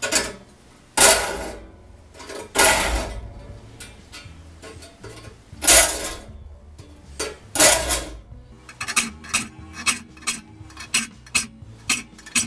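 Flat file rasping across the steel teeth of a crosscut frame saw, filing the teeth from the second side of the blade. First come four long push strokes, each about a second long, then from about nine seconds a quicker run of short strokes, two to three a second.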